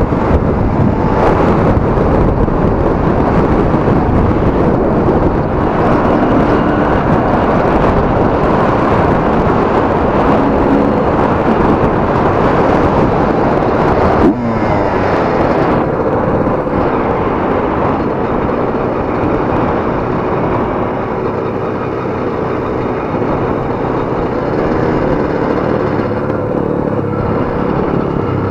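Dirt bike engine running while being ridden, loud and continuous. About halfway through there is a sudden click and a quick falling sweep in pitch, after which the engine note runs steadier.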